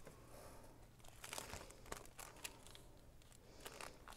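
Paper rustling and crinkling as sheets of craft paper are handled, in several short, faint spells.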